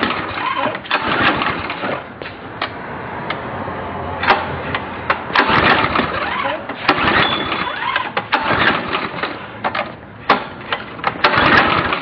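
Briggs & Stratton 5.5 HP Quantum pressure-washer engine being pull-started again and again: each yank of the recoil starter spins the engine over in a short burst of noise and clicks, and it never catches. The engine cranks but will not fire, even with a cleaned carburetor and a new spark plug.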